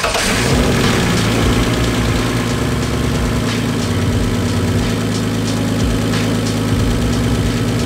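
Turbocharged BMW E46 engine idling steadily with its hood open. It is being run after a new Stewart water pump was fitted, to warm up and to check for coolant leaks.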